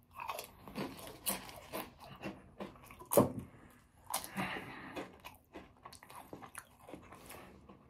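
Close-up crunching and chewing of potato chips in a person's mouth, irregular crisp bites throughout, the loudest crunch about three seconds in.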